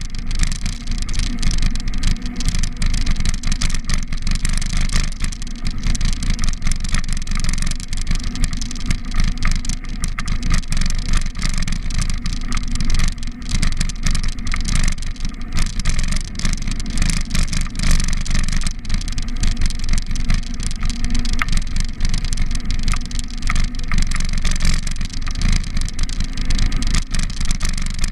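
Wind buffeting the microphone of a camera riding on a moving bicycle: a loud, steady rumble that flickers rapidly, with road and tyre noise mixed in.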